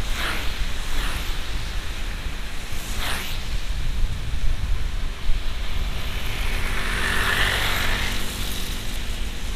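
Inside a car driving in heavy rain: a steady low road and engine rumble under the hiss of rain, with a few brief swishes. A louder swell with a low hum comes about six to eight seconds in.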